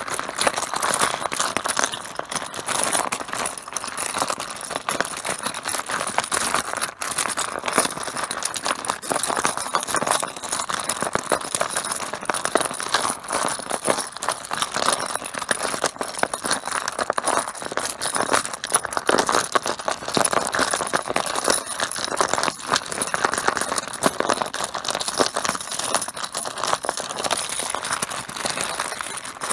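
Mahjong tiles clacking against one another in a dense, continuous clatter, like tiles being mixed by hand on a table.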